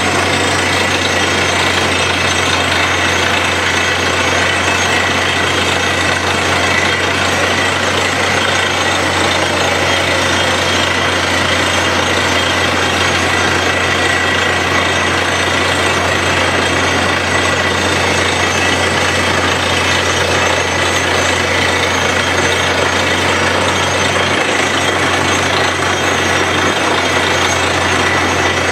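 Truck-mounted compressor borewell drilling rig drilling: a loud, steady mechanical din with a low hum beneath it, as compressed air blasts rock dust and cuttings up out of the bore.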